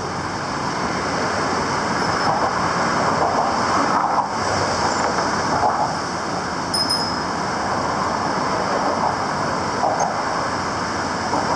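Steady city traffic noise, a continuous hum of passing vehicles with no single event standing out.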